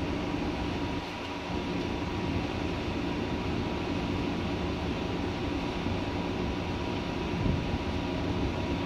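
Steady mechanical drone of a container ship's machinery, a low hum with a faint constant whine above it.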